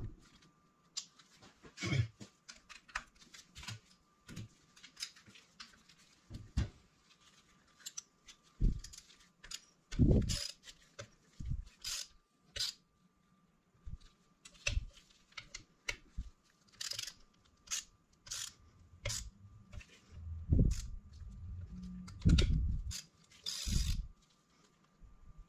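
Metal turbocharger parts being handled and bolted together by hand: irregular clicks and taps of bolts and the wastegate actuator bracket, with a small socket ratchet turning the bolts. A few heavier knocks come about twenty seconds in.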